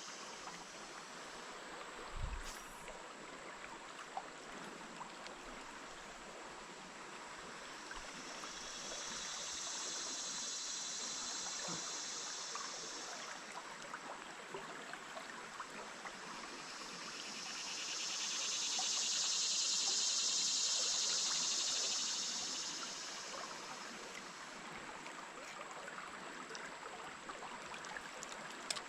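Stream water running steadily over the riverbed. A high hiss swells and fades twice, about ten and twenty seconds in.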